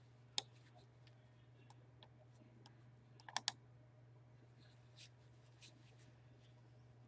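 A few sharp clicks at a computer: one about half a second in, a quick pair a little past three seconds, and fainter ticks after that. A steady low hum runs underneath.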